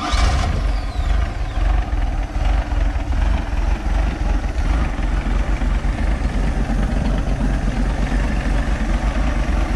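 Mercruiser 140 3.0-litre four-cylinder inboard marine engine starting suddenly and running steadily on a newly fitted Sierra carburetor that still needs its mixture fine-tuned.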